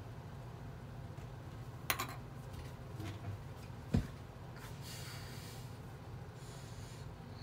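Plastic Lego pieces handled on a wooden tabletop: a sharp click about two seconds in, then a louder low knock about four seconds in as a piece is set down, followed by faint rustling, over a steady low hum.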